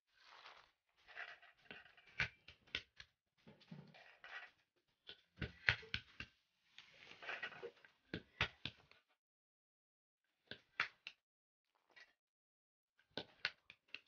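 Walnuts being cracked with a small hammer on a flat stone: sharp knocks, often two in quick succession. Between strikes the broken shells rattle and scrape on the stone as they are pushed aside.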